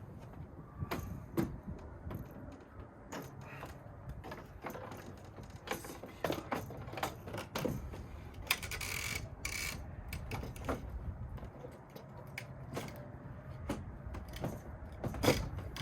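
Irregular clicks, knocks and light clatter of hand work with tools and parts, with a short scraping rustle about nine seconds in.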